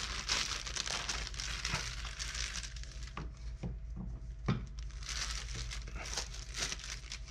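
Clear plastic bag crinkling and rustling as it is pulled off a figure and handled, with a few light knocks around the middle.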